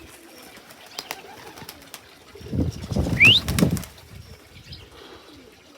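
Racing pigeons: a loud burst of low rustling about two and a half seconds in, lasting over a second, with a short rising squeak over it and a few faint clicks before.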